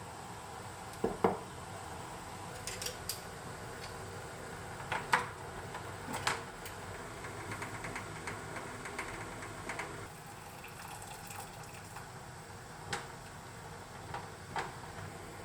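Small glass bottles clinking and knocking against each other and a metal pot as they are handled in hot water for sterilizing, with faint sounds of water. The knocks are scattered and irregular.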